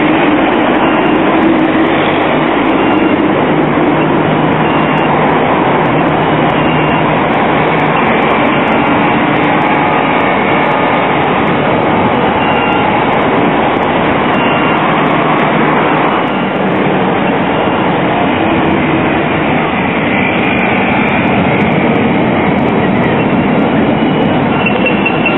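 Articulated electric trams, a Valmet and then Bombardier Variotrams, running past on street track: a steady, loud running noise of wheels and traction equipment, with faint high-pitched tones now and then.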